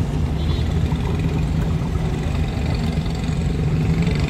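Daihatsu Cuore's small three-cylinder engine idling steadily, heard from inside the car's cabin as a low, even rumble.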